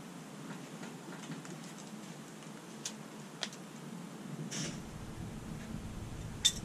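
A few light clicks and clinks of small metal hand tools and parts being picked up and set down on a garage floor, the sharpest near the end, over a faint steady background.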